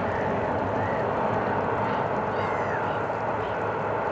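Steady running noise of the steam locomotive Tornado, a Peppercorn A1 Pacific, and its train across the water. A bird calls once, briefly, about two and a half seconds in.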